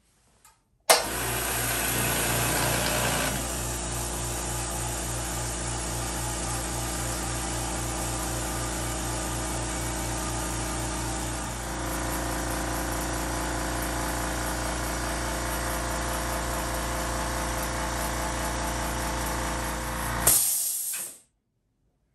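Makita MAC210Q quiet-series 2-gallon air compressor with a 1 hp motor, starting up about a second in and running steadily with an even hum. It stops near the end after a brief louder burst. Close up it measures around 70 decibels.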